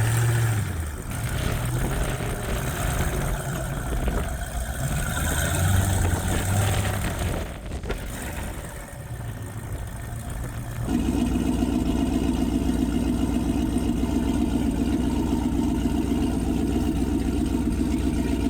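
Side-by-side UTV engine revving up and down under load while rock crawling, with a single knock about eight seconds in. From about eleven seconds on the engine settles into a steady, even note.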